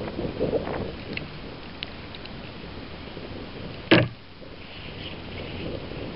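Handling knocks and bumps in a kayak over a steady hiss of wind and water, with one sharp knock about four seconds in.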